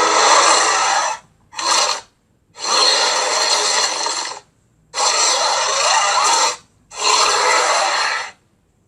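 Made-up Suchospinosaurus creature calls, mixed from crocodile, King Kong and carnotaurus sounds: a run of five raspy, hissing growls, each half a second to two seconds long, with short silences between them.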